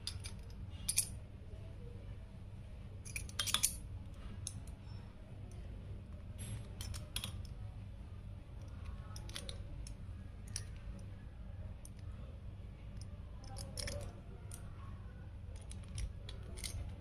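Handling of Beyblade packaging and parts in an unboxing: scattered clicks, crinkles and light clinks of plastic packaging and small metal-and-plastic pieces, loudest in a quick cluster about three and a half seconds in and again near the end, over a steady low hum.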